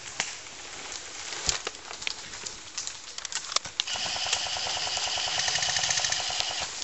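Scattered sharp clicks and snaps, then, about four seconds in, a rapid, even rattle of an airsoft electric gun firing on full auto.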